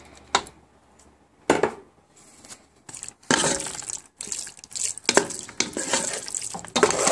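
Two sharp clinks as salsa verde is poured from a glass jar into a pot. Then, from about three seconds in, a wooden spoon stirs and scrapes through shredded chicken in the pot.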